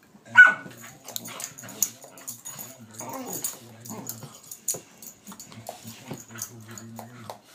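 Two dogs play-fighting, a pit bull and a rottweiler puppy: one sharp yip about half a second in, then scattered clicks, scuffles and short low vocal noises from the dogs' mouthing.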